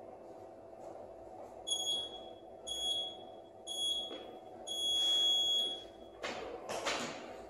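Gym wall timer beeping the start countdown: three short high beeps a second apart, then one long beep that starts the workout clock. Then a barbell clatters as it is gripped and lifted.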